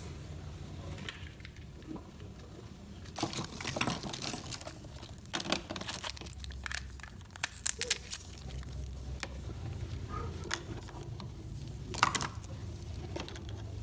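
Small objects being handled, with crinkling and scattered sharp clicks and taps; a quick run of clicks comes about eight seconds in and a single sharp one near the end.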